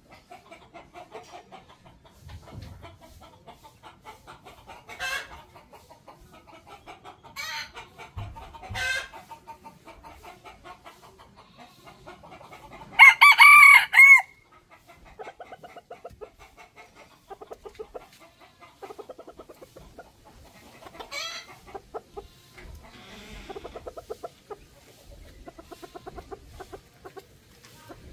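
Chickens clucking in short runs of quick notes, with a rooster crowing loudly once about halfway through, a single crow lasting about a second and a half.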